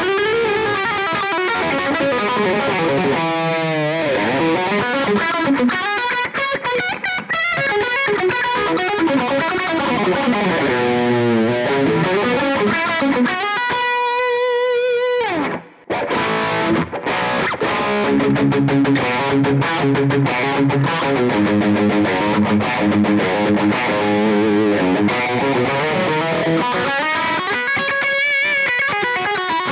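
Electric guitar played through a Line 6 POD X3 Live multi-effects unit on a distorted, high-gain overdrive tone with an extra gain stomp boost. Lead lines with string bends and vibrato, a long held note that stops abruptly about halfway through, then fast picked runs.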